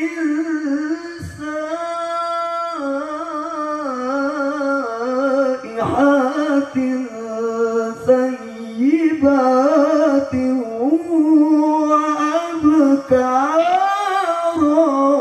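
A male Qur'an reciter (qari) chanting in melodic tilawah style into a microphone through a PA sound system. He draws out long ornamented notes, with the pitch wavering and sliding between short breaths, and the last phrase rises and falls near the end.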